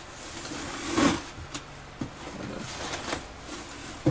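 Fingers scratching and picking at packing tape on a cardboard shipping box, with a louder rasp about a second in and a few light taps on the cardboard.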